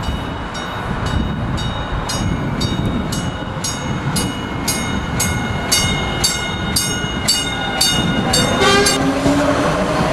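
MTA Maryland light rail train rumbling past close by. A warning bell is struck about two to three times a second, quickens briefly and stops near the end.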